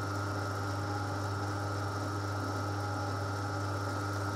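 Steady low electric-motor hum with a few faint steady tones above it, unchanging throughout.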